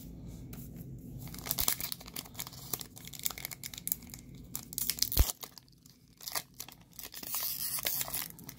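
Foil Pokémon card booster pack being torn open and crinkled by hand, a run of sharp crackles. A single low thump comes about five seconds in, and the crinkling picks up again near the end.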